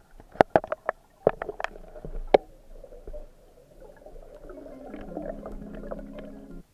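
A quick run of sharp knocks and clicks, heard underwater, as gear is knocked about during rapid movement. From about four and a half seconds in, a low steady hum rises and then cuts off suddenly.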